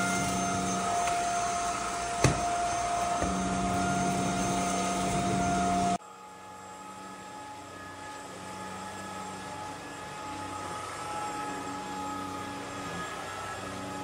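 Cordless stick vacuum running with a steady whine as it is pushed over a wooden floor, with one sharp click about two seconds in. About six seconds in the sound cuts to a quieter, slightly different motor hum as the vacuum runs over a rug.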